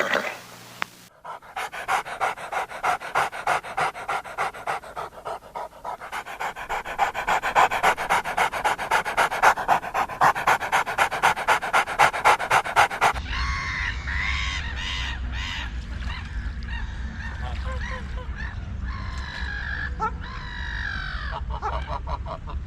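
A dog panting quickly and evenly, a few breaths a second, for about twelve seconds. Then, about 13 seconds in, a steady low rumble with short, pitched animal calls takes over.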